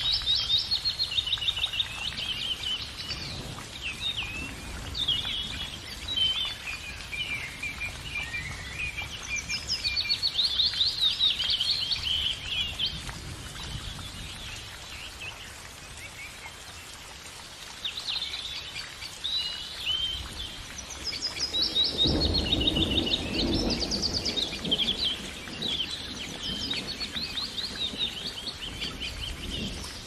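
Small songbird singing in fast twittering trills and chirps, with short pauses between phrases. About twenty-two seconds in, a couple of seconds of low rustling noise sit under the song.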